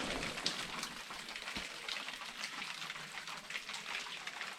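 Water dripping and splashing into a cave pool: many quick drips over a steady hiss of falling water.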